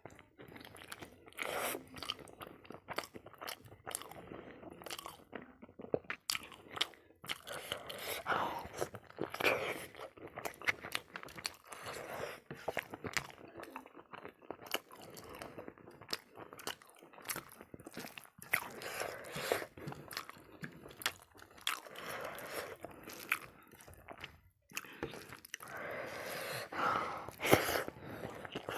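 Close-miked eating: a person chewing and biting meat on the bone with rice, giving irregular wet chewing and crunching bites.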